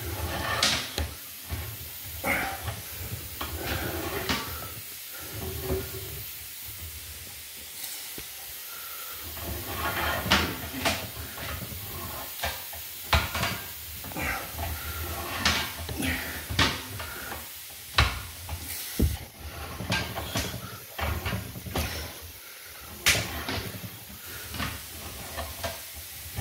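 Sewer inspection camera's push cable and reel being worked by hand: irregular clicks and knocks, sometimes in quick clusters, over a steady hiss.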